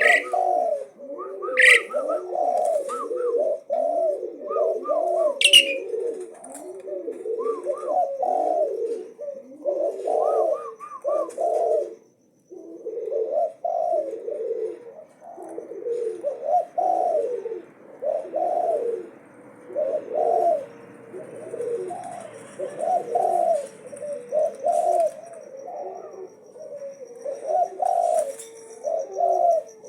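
Pied starling (jalak uren) singing nonstop: a continuous string of short, low, throaty warbled notes, about one or two a second, mixed with a few higher chirps and some sharp squeaks in the first few seconds.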